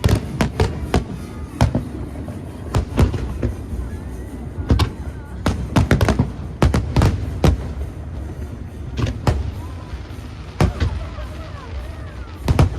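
Aerial fireworks bursting: a rapid, irregular series of sharp booms in clusters, several bangs a second at times with short gaps between.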